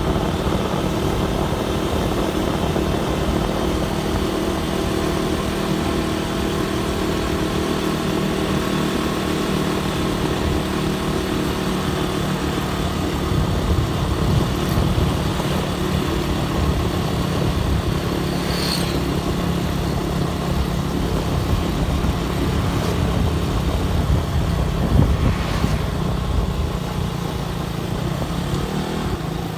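Motorcycle engine running steadily while riding along a road, with wind and road noise over the microphone.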